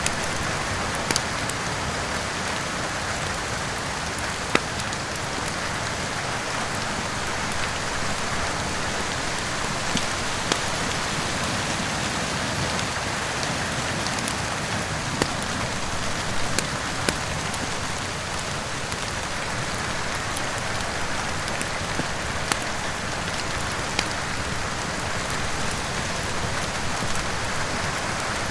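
Steady heavy rain hissing, with sharp crackles and pops from a wood fire in a fireplace every few seconds.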